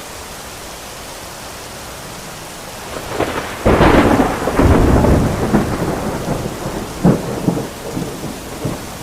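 Heavy rain falling steadily. About three and a half seconds in, a loud clap of thunder rumbles and then slowly dies away.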